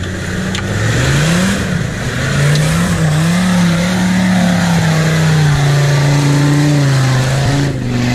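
Land Rover Discovery Td5's five-cylinder turbodiesel engine at full throttle as the 4x4 pushes through deep mud. The revs climb about a second in and then hold high and steady.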